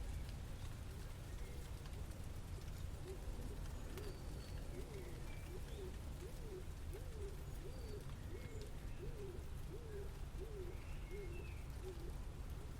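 A bird calling in a run of about a dozen rising-and-falling notes, a little over one a second, from a few seconds in until near the end, over a steady low city rumble, with faint high chirps scattered throughout.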